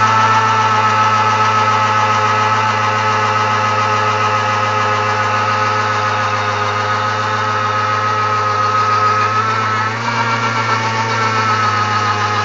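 Simson two-stroke single-cylinder engine held at high revs in a burnout, the rear tyre spinning on the road and smoking. The revs hold steady, dipping briefly about ten seconds in and picking up again.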